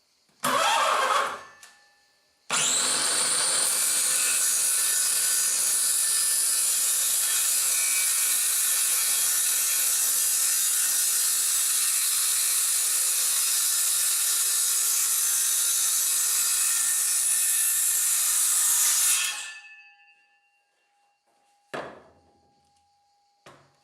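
Parkside PHKSA 20-LI A2 20 V cordless circular saw briefly spun up, then cutting through a piece of wood about 3 cm thick for about seventeen seconds, steady throughout, then winding down. Two short knocks follow near the end.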